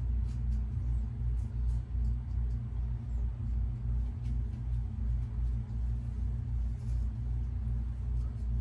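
A steady low hum that pulses slightly, with a few faint light ticks over it.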